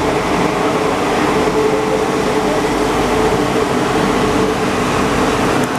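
Santiago Metro NS93 rubber-tyred train running, heard from inside a packed car: a steady rolling rush with a constant hum-like tone through it.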